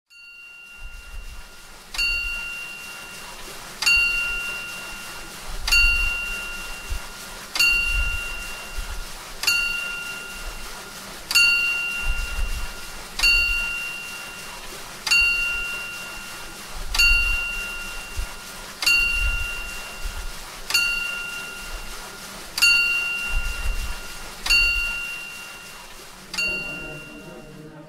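A metal bell struck about fourteen times at an even pace of roughly one strike every two seconds, each strike ringing out and fading before the next. A faint low rumble comes and goes beneath it.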